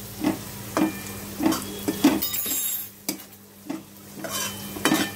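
Chopped onion and garlic frying in oil in a metal wok, a metal spatula scraping and knocking against the pan in repeated strokes about every half second, briefly quieter around the middle.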